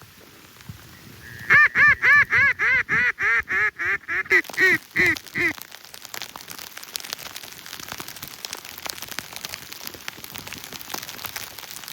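Mallard-style duck call blown in a run of about fourteen quick quacks, roughly three a second, trailing off slightly in loudness, like a hen's hail or greeting cadence used to pull ducks in. A steady faint hiss follows.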